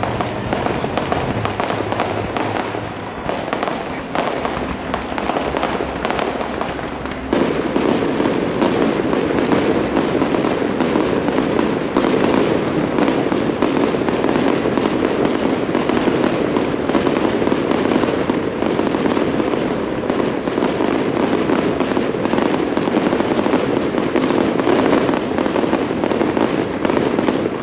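Aerial fireworks display: a dense, unbroken run of shell bursts, bangs and crackling. It gets suddenly louder about seven seconds in and stays that way.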